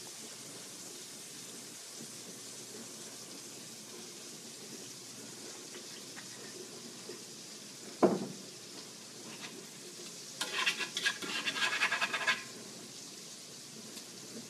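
Turkey patties sizzling in fat in a skillet, a steady hiss. A single sharp knock about eight seconds in, then a couple of seconds of clinking and scraping, typical of tongs working the pan.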